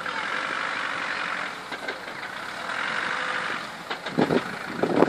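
Land Rover Discovery's engine running at low speed as it crawls over rough off-road ground, its note swelling and easing, with two short louder bursts about four and five seconds in.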